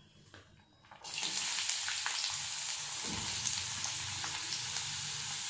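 Chopped red onion hitting hot oil in a kadai and sizzling, starting suddenly about a second in and then frying steadily.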